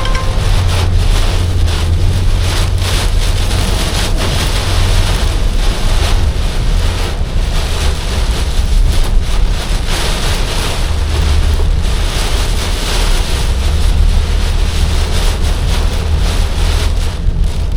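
Car driving through a storm: a steady, loud rush of wind and rain noise over a low road rumble.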